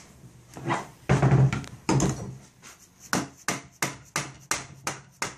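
Orange rubber mallet tapping on a Type 11 light machine gun to drive the buttstock and trigger group off its rails. After some handling, a steady run of sharp taps, about three a second, begins about three seconds in.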